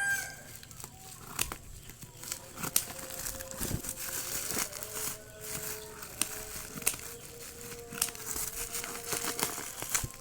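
Plastic packaging crinkling and rustling as it is handled, with scattered sharp clicks and taps from handling.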